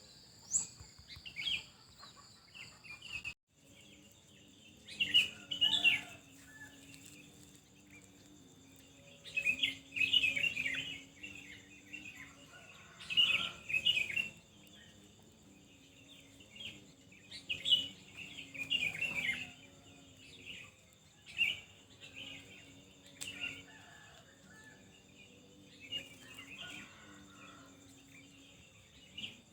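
Songbirds chirping and twittering in short bursts every few seconds, over a steady high whine of insects. The sound cuts out completely for a moment about three seconds in, where the recording is spliced.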